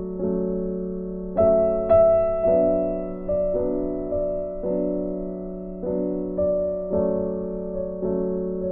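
Background music: a slow, gentle piano melody, each note or chord struck and dying away, roughly one a second.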